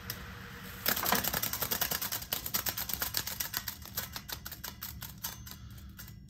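Akai 635D reel-to-reel deck at the end of a fast wind: the loose tail of the tape slaps once per turn as the take-up reel spins on, a rapid run of ticks that starts about a second in and slows and fades toward the end.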